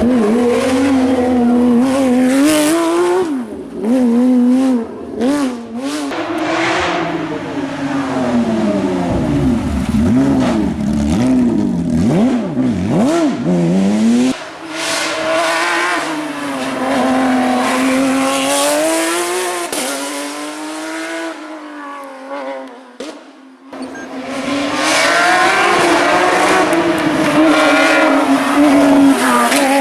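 Porsche 911 GT3 Cup race car's flat-six engine at full effort, its revs climbing and falling again and again through gear changes and braking for corners. The sound cuts abruptly about halfway through and drops off briefly near the three-quarter mark before the revs climb again.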